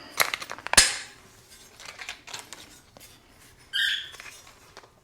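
Sharp clacks and knocks of a tree-stand hunting platform being handled as it comes out of its box, with one sharp clack just under a second in, faint ticks after it, and a brief high squeak near four seconds.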